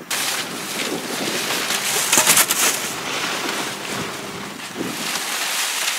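Rustling and crinkling of plastic bags and bubble wrap being rummaged through in a dumpster, mixed with the microphone rubbing against clothing, at its harshest a little over two seconds in.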